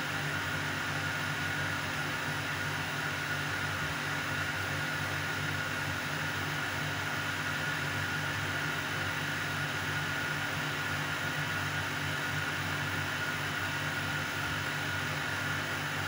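Steady, unchanging noise like a fan or hiss, with a low hum and a thin steady tone under it; no bird calls or other distinct sounds stand out.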